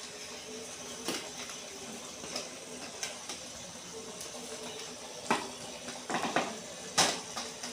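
Scattered clicks and knocks of a package being handled and opened, the loudest near the end, over a faint steady hum.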